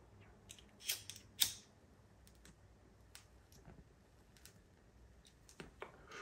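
Quiet clicks and crackles of a blunt being lit and smoked, with two short, sharp hissy puffs about a second in and faint ticks after.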